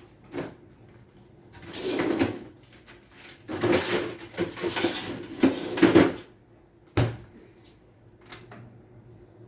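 Clattering, scraping and knocking of things being handled, in irregular bursts, with a single sharp knock about seven seconds in.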